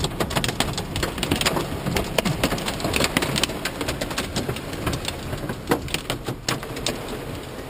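Heavy storm rain hitting a stopped car's roof and windshield, a dense irregular patter of hits over a low rumble of wind and the idling engine, heard from inside the car.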